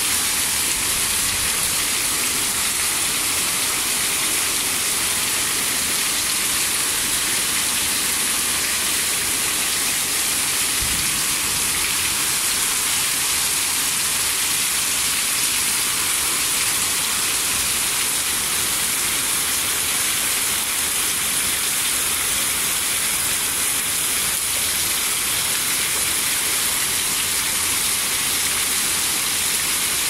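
Heavy rain falling steadily on leaves and a wet paved path, with water running off a roof edge.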